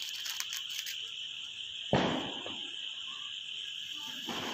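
A single firecracker bang about two seconds in. Near the end a flower-pot (anar) firework catches and starts to spray sparks with a rising hiss.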